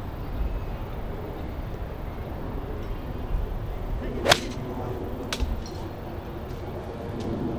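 A golf iron swings through and strikes a ball off the turf about four seconds in, a single sharp crack. About a second later there is a fainter knock, the ball clipping a tree.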